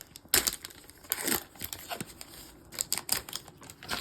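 A Pokémon TCG booster pack's foil wrapper being torn open and crinkled, in several short crackly bursts.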